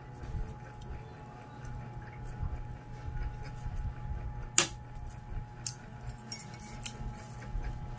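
Metal fork clinking and scraping on a plate while eating, with one sharp clink about halfway through and a few lighter taps after it, over a steady low hum.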